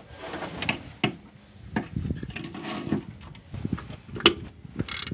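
Hand wrench clinking and scraping on metal while unbolting the master cylinder from the brake booster of a 1976 Ford F-150, in irregular clicks and knocks, with a few sharper ratchet-like clicks near the end.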